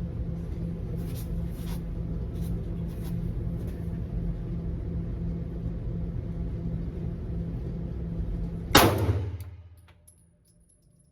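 Steady low rumble, then a single Glock 45 9mm pistol shot about nine seconds in, sharp and loud with a short ring, after which the background rumble drops away to near quiet.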